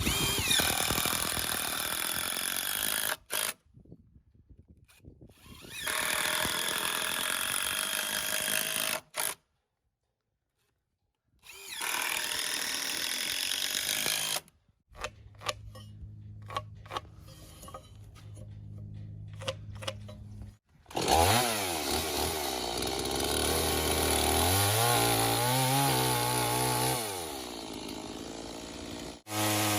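Chainsaw cutting notches into wooden cross-arm timbers, in several loud stretches broken by short gaps. In the second half it idles steadily, then revs up and down while cutting.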